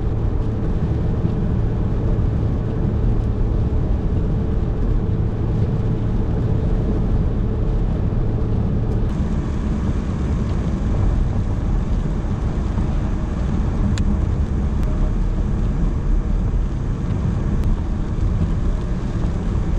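Car road noise heard from inside the cabin at highway speed on a wet road: a steady low rumble of engine and tyres. A steady low hum in it drops out about nine seconds in.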